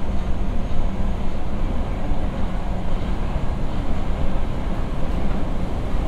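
Interior running noise of an Osaka Metro 20 series electric train moving at speed through a tunnel. It is a steady, loud rumble of wheels on rail, heaviest in the low end.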